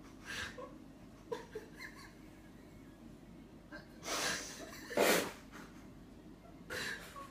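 Breathy snorts of a person's stifled laughter: a short one at the start, two louder ones about four and five seconds in, and another near the end. A few faint light knocks come between one and two seconds in.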